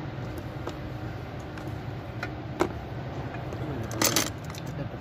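Metal clinks and the rattle of steel chain links as an opened chain block's load chain and parts are handled, a few scattered clicks and then a louder jangle about four seconds in. A steady low hum runs underneath.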